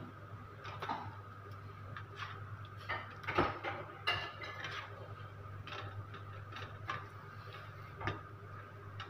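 A spatula scrapes and knocks against a frying pan as stuffed chillies are turned in a thick sauce. Irregular clicks and taps come every second or so, the loudest about three and a half seconds in, over a steady low hum.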